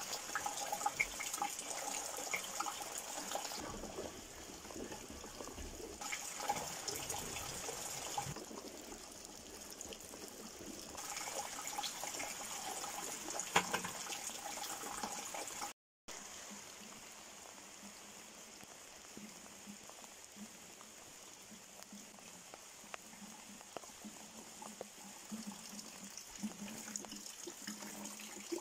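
Rain falling steadily, with water splashing and trickling around plastic buckets and rain barrels. About halfway through the sound cuts out for an instant, then goes on quieter.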